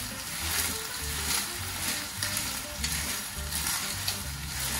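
Clams in their shells sizzling in hot olive oil and softened onion in an enamelled cast-iron pot. They are stirred with a silicone spatula, with a steady hiss and frequent light clicks of shell against shell and pot.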